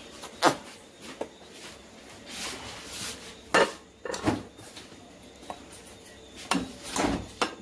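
Plates clinking and knocking against each other and the counter while food is served onto them: several sharp clinks, the loudest about half a second in and again at about three and a half seconds.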